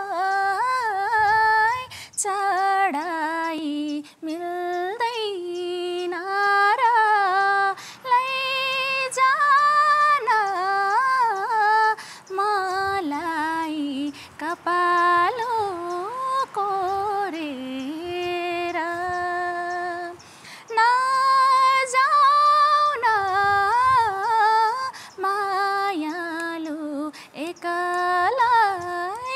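A young woman singing a song unaccompanied, in long phrases with vibrato on the held notes and short breaks between phrases.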